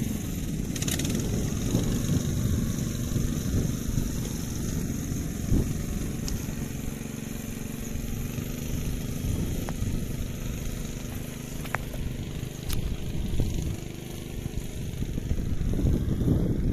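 Honda GX120 single-cylinder four-stroke engine of a walk-behind rice transplanter running steadily, with wind buffeting the microphone.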